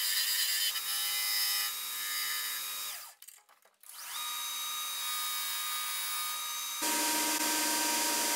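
Homemade 2x72 belt grinder running while the end of a steel plate is ground round against the abrasive belt, with steady motor and belt tones under the grinding. The sound breaks off for about a second midway. Near the end it changes to a louder, steadier running hum.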